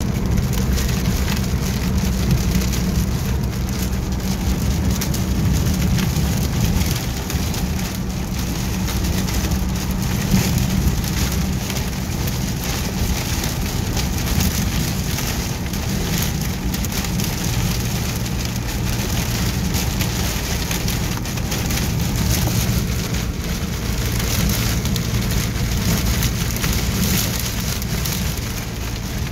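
Rain hitting a pickup truck's windscreen and roof in a windstorm, a dense spatter of drops over a gusting rush of wind, heard from inside the cab. A low steady engine and road rumble runs underneath.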